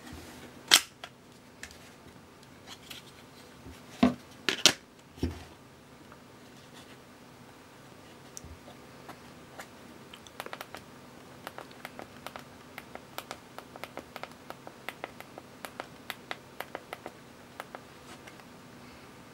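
Thumb-typing on a prototype TOHKBD slide-out phone keyboard: a quick, uneven run of small key clicks through the second half. A few louder knocks come in the first five seconds.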